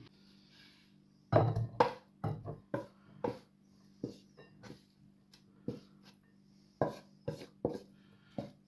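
Serving utensil knocking and scraping against the pan and plate as fried rice is dished up: about a dozen separate, irregular knocks, one or two a second, over a faint steady hum.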